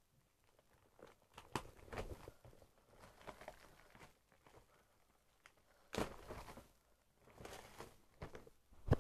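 Faint, scattered crinkles and taps of trading-card multipack packaging being handled, with the sharpest crackle about six seconds in.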